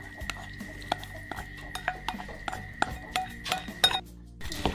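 A utensil clinking and scraping against a bowl as a stir-fried topping is scraped out onto rice in a stainless steel basin: a run of irregular light clinks, some briefly ringing.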